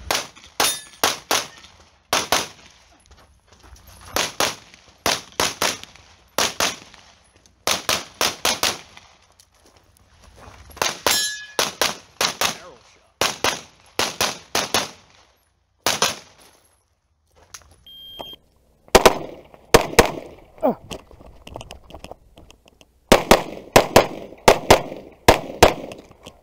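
Rapid strings of pistol shots, mostly in quick pairs, with short pauses between target arrays. About 18 seconds in, a short high shot-timer beep sounds and a new string starts from a compensated Open-division pistol, louder than before the beep.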